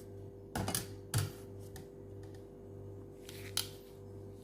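A few sharp clicks and clacks of kitchen utensils handled at a stovetop grill over a steady low hum.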